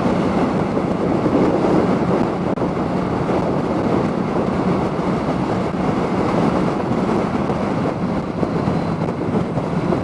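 Steady wind rush on a helmet mic while riding a motorcycle, with the Yamaha MT-07's parallel-twin engine running underneath at an even pace. It is heard through a lavalier mic inside a full-face helmet, under the chin.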